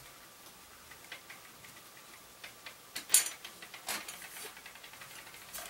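A few light clicks and knocks from hands handling a desk lamp's shade, the sharpest about three seconds in and another about a second later.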